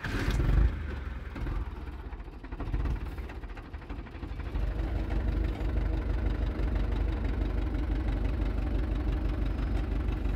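Tractor engine running steadily, growing louder about four and a half seconds in.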